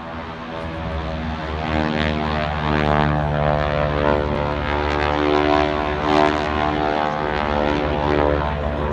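Engines of two propeller-driven aerobatic biplanes flying overhead: a steady engine note that grows louder over the first few seconds and then holds.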